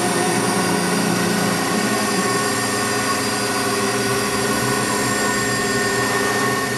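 CNC milling machine spindle running steadily while its ball-end cutter machines RenShape 5008 tooling board on a finishing pass. It makes a steady whine of several held tones over the cutting noise.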